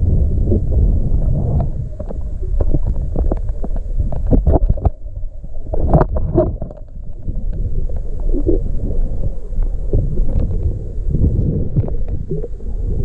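Muffled underwater rumble and water movement heard through a camera held underwater by a swimming freediver, with a cluster of sharp knocks and clicks around the middle as the camera is swept quickly.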